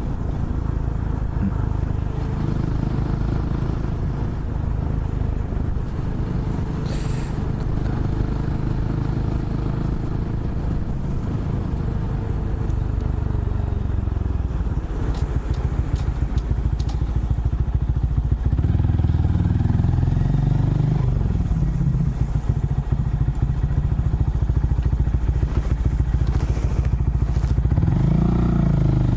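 Honda Monkey motorcycle's small single-cylinder four-stroke engine running on the move, its pitch rising and falling with the throttle. It gets louder from about halfway, with several revs up near the end.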